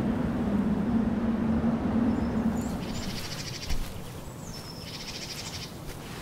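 Outdoor nature ambience from a sound library. A low steady hum and a noise bed fade out in the first half. Then fast pulsing insect trills and short thin bird whistles take over, with a single soft knock about two thirds of the way in.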